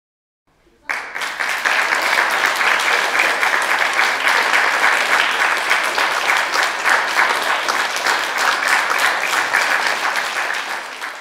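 An audience of schoolchildren applauding, coming in suddenly about a second in and dying away near the end.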